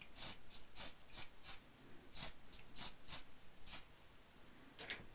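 Hairspray can spraying in about a dozen short hissing spurts; the last spurt, near the end, is the loudest. The spray fixes the scatter foliage onto a model tree.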